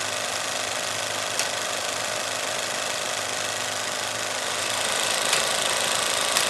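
Film projector sound effect: a steady running whir and clatter with a few sharp clicks, getting slightly louder about five seconds in.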